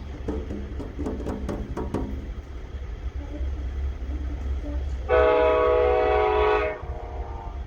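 Locomotive air horn sounding one chord blast of about a second and a half, a little past halfway, over the low rumble of a slow-moving freight train.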